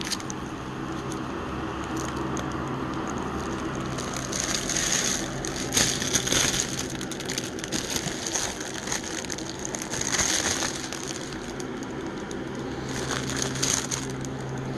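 Clear protective plastic film crinkling and crackling as it is peeled off a smooth reflective panel, louder in a few swells, over a low steady hum.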